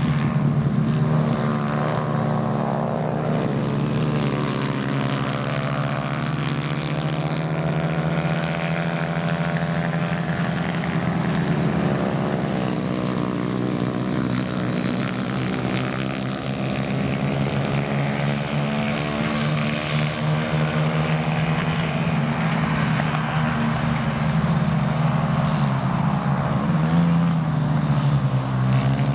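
Several small kart engines running together as racing karts lap the circuit, a steady engine drone with pitches rising and falling as the karts accelerate, brake and pass.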